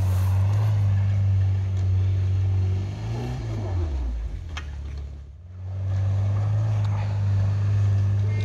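Off-road SUV engine running hard at steady revs; about three seconds in the revs fall away and it goes quieter, then it revs back up about six seconds in and holds.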